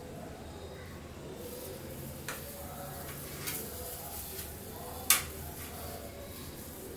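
Plastic-gloved hands working marinade onto pork skewers on a steel plate: soft handling noise with a few sharp clicks, the loudest about five seconds in.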